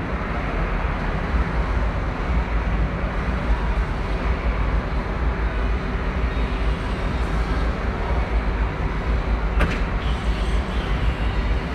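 Murmur of a large crowd echoing in a sports hall, over a steady deep low rumble. A single sharp click sounds near the end.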